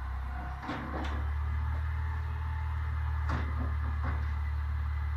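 Refuse truck engine running with a steady low hum, with several sharp knocks and bangs from bins being handled at the truck: two about a second in, a louder one past the middle and a weaker one soon after.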